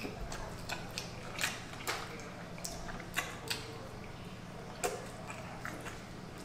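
Eating sounds from someone chewing fried chicken wings: about a dozen irregular clicks and smacks over a steady low hum.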